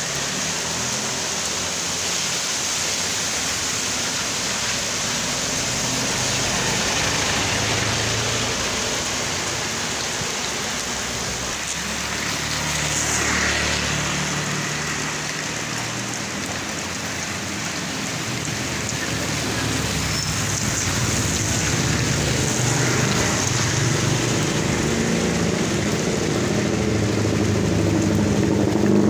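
Steady rain falling on a wet asphalt street, with motor vehicles passing along the wet road. A motorbike engine grows louder near the end.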